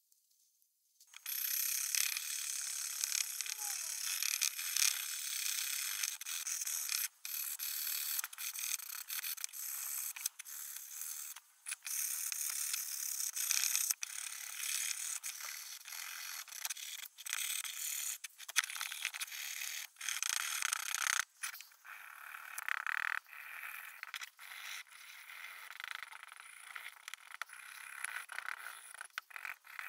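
Hand-held steel wire brush scrubbing old blue paint off a metal drill press table, a rasping scrape that starts about a second in and keeps going in quick strokes with brief breaks.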